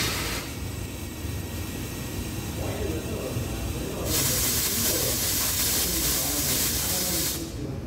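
Espresso machine letting off steam in a loud hiss that cuts off about half a second in, starts again around four seconds in and stops shortly before the end, over a steady low machine hum.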